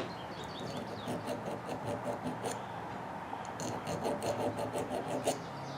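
Small file scraping and wiggling on the burnt contacts inside a table-saw power toggle switch, cleaning off arcing damage: faint scratchy ticks, more frequent in the second half.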